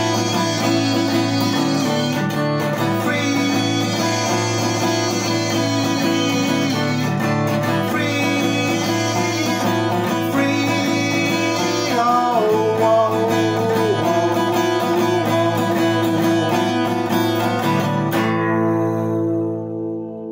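Steel-string acoustic guitar strummed steadily in chords, with a brief wordless vocal line about twelve seconds in. Near the end the strumming stops and the last chord rings out and fades.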